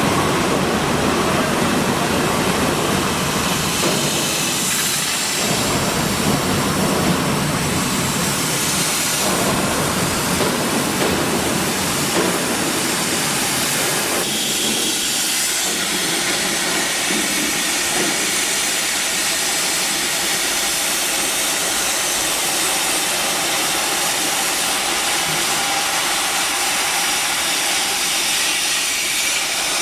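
Oxy-fuel cutting torch on a gantry CNC flame cutting machine hissing steadily as it cuts. About halfway through, the lower rumble drops away and a higher hiss remains.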